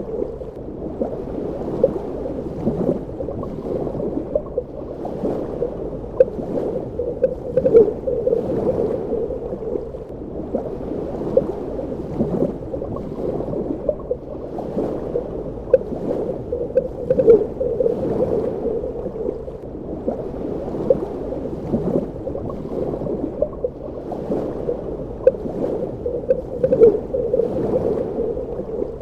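Underwater ambience: a steady, muffled wash of water with frequent short bubbling gurgles and almost no high end.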